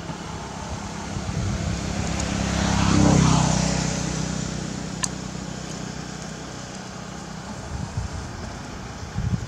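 A motor vehicle drives past, its engine growing louder for about three seconds, peaking, then fading away. A single sharp click comes about five seconds in.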